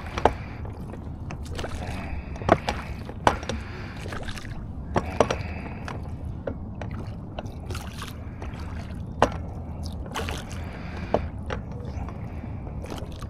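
Small fishing boat on the water: a steady low rumble with scattered sharp knocks and clicks.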